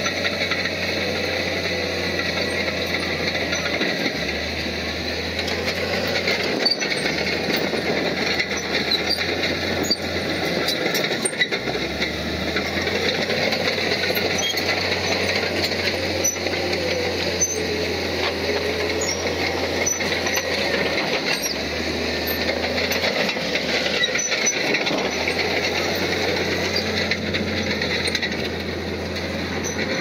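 Crawler bulldozer's diesel engine running steadily under load, with steel tracks and metal parts clanking and rattling throughout.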